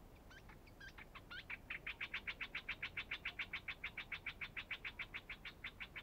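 Yellow-vented bulbul calling: a few scattered chirps, then a fast, even chatter of short notes, about eight a second, for about four seconds.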